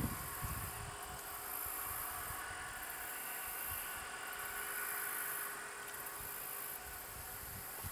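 Union Pacific 844, a 4-8-4 steam locomotive, approaching at a distance: a faint, steady rumble and hiss with no distinct beat.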